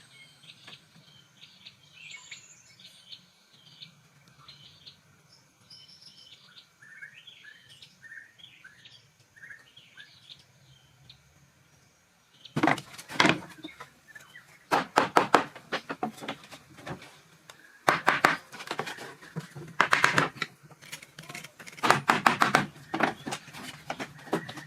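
Birds chirping faintly over a low hum, then, from about halfway, loud clattering and scraping in short runs, typical of hand-tool work on the building site.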